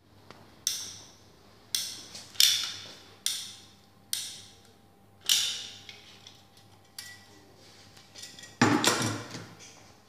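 Metal caulking gun clicking as its trigger is squeezed to push adhesive out of a cartridge: a series of sharp clicks, each ringing briefly, about one a second. Near the end comes a louder burst of clatter from handling.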